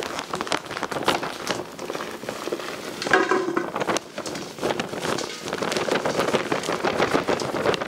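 Sphagnum peat moss potting mix being poured from its plastic bag into a pot: a dense, steady crackle of falling soil, with the bag rustling as it is tipped and held.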